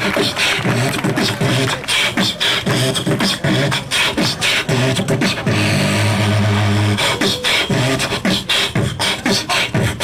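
Human beatboxing into a handheld microphone: fast percussive mouth sounds, clicks and hits in quick succession, with a held low bass hum for about a second and a half past the middle.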